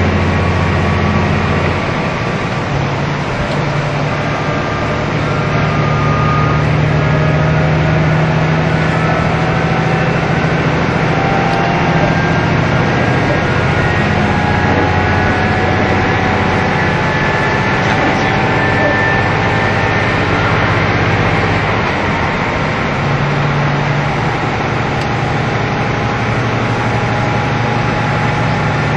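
Cabin sound of a KiHa 75 diesel railcar running between stations: engine drone with wheel and rail noise. The engine note steps up about two seconds in, drops back around twenty-two seconds and rises again shortly after, and fainter whining tones climb slowly as the train picks up speed.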